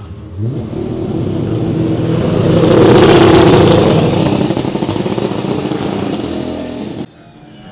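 Gen3 Supercar V8 race car passing at speed, its engine note climbing as it comes in, getting loud near three seconds in, then fading away. It cuts off suddenly about seven seconds in.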